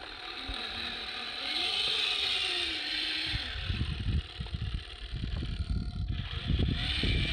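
Electric motor and gear train of a 1/10-scale RC crawler whining, its pitch rising and falling with the throttle as it crawls through grass. From about halfway, rough rumbling and rustling bumps take over and grow louder.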